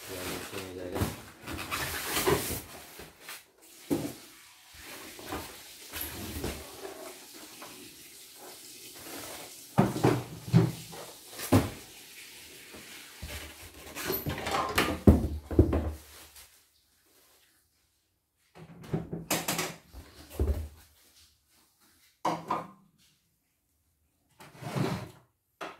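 Packaging being handled: plastic wrap and styrofoam packing rustling as they are pulled out of a cardboard box, with several knocks and thumps. About two-thirds through the rustling stops, and a few short separate bursts of handling noise follow.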